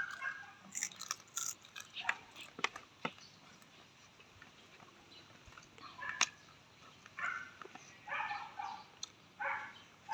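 Close-up eating sounds: chewing and crunching of food with sharp clicks through the first half. In the last few seconds comes a run of short, separate bursts.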